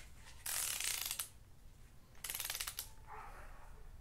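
Ratchet head of a long torque wrench clicking in two quick runs as a cylinder head bolt on a 12-valve VR6 engine is tightened in sequence.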